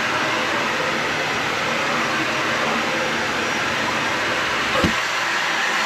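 Vacuum cleaner running steadily over carpet, with a brief low thump about five seconds in.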